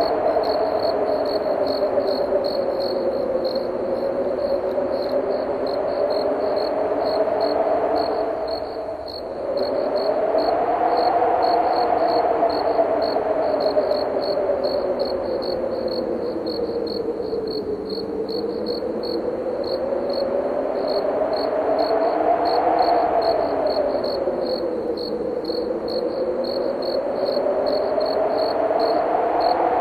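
Crickets chirping in a steady, evenly pulsed rhythm over howling wind whose pitch rises and falls in slow gusts.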